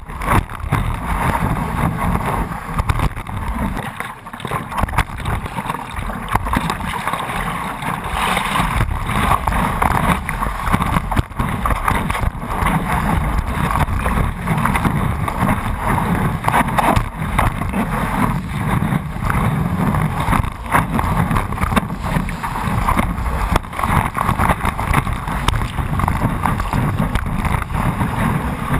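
Water rushing and splashing along a stand-up paddleboard as it rides a breaking wave, with wind buffeting the microphone of a camera mounted low on the board. A steady loud wash with many small irregular splashes.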